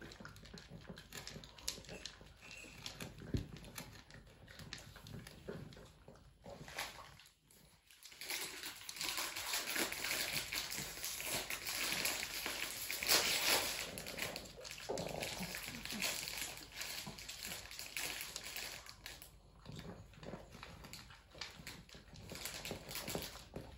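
Pug eating food from a bowl: rapid, irregular chewing and crunching, loudest from about eight seconds in until about fifteen.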